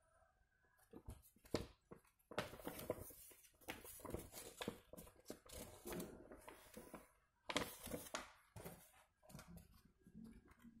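Faint, irregular rustling and handling noises.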